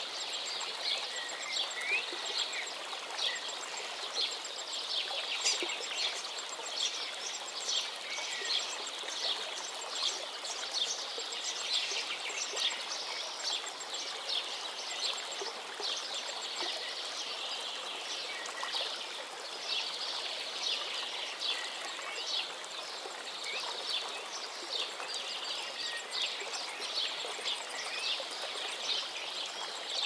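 Mountain stream rushing steadily over rocks, with small birds chirping again and again above the water.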